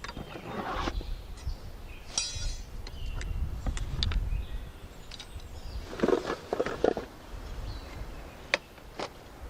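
Outdoor ambience: low wind rumble with scattered rustles and clicks, a short bird chirp about two seconds in, and a louder patch of rustling or footsteps around the middle.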